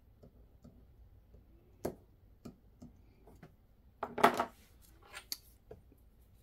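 Quiet desk-handling sounds: a few scattered clicks and taps, with a short scratchy rustle about four seconds in.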